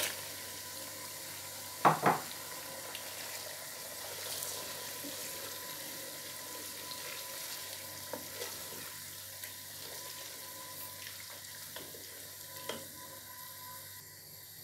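Blended pepper and tomatoes frying in oil in a stew pot, with a steady sizzle while a wooden spoon stirs. Two sharp knocks come about two seconds in, and a few lighter clicks follow later.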